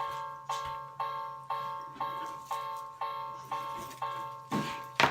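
Toy Japanese railway crossing sounding its electronic warning bell, the 'kan-kan' ding repeating about twice a second. A couple of sharp knocks come near the end.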